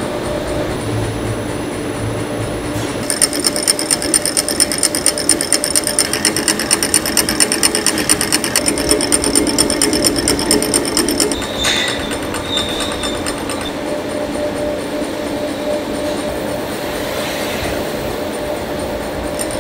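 Food-factory machinery running with a steady hum. From about three seconds in, a fast, regular mechanical clatter joins it and stops after about eight seconds, followed by a brief high squeak.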